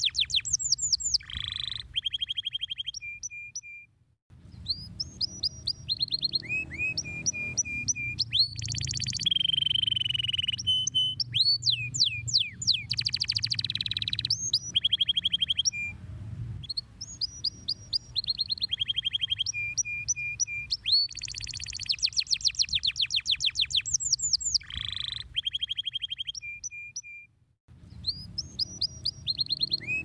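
Domestic canary singing a long song of fast trills and rolls, repeated rising sweeps and runs of short clipped notes, broken by two brief pauses, about four seconds in and near the end. A steady low hum runs underneath.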